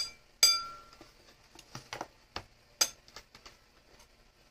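Metal spoons and forks clinking and tapping against ceramic bowls while eating: one ringing clink about half a second in, then a run of lighter taps, with a louder one near three seconds.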